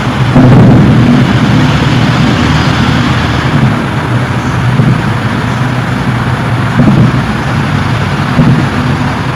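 A loud, low droning rumble with a steady deep hum under a noisy roar, swelling a little about half a second in and again near seven and eight and a half seconds, the kind of recording passed around as mysterious sky sounds.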